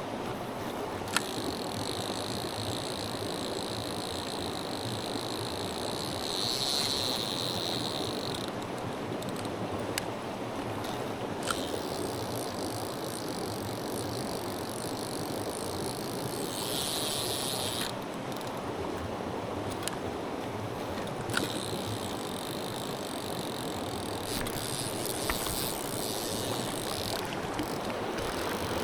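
Mountain stream water rushing steadily. A thin high hiss or whir comes and goes three times, and there are a few sharp clicks.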